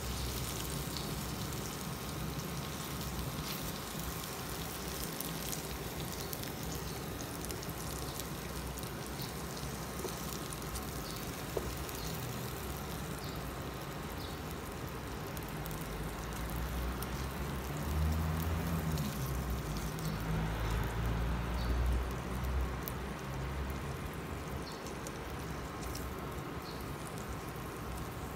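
Chicken breast pieces sizzling and crackling in hot oil in a frying pan, a steady crackle with fine ticks, while spatulas lift pieces out. A louder low rumble rises for a few seconds past the middle.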